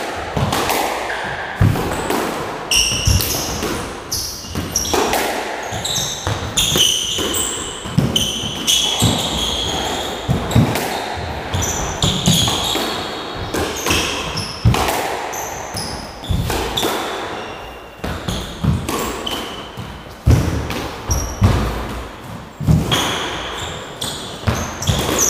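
Squash rally: the ball striking rackets and smacking off the court walls about once a second, echoing around the court, with shoes squeaking on the wooden floor.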